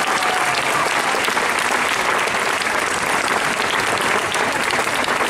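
A crowd applauding, steady dense clapping.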